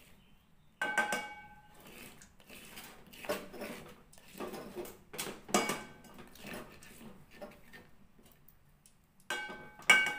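A spatula scraping ground spice paste out of a stone mortar and knocking against an aluminium cooking pot. The pot rings briefly when struck, about a second in and twice near the end, with softer scrapes and knocks between.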